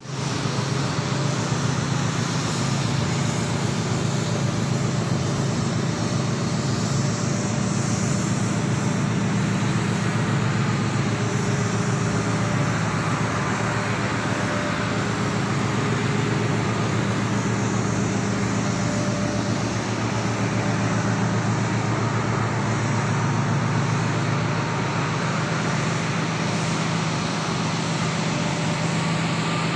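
A ship's machinery running with a steady low drone under a constant broad noise, unchanged throughout.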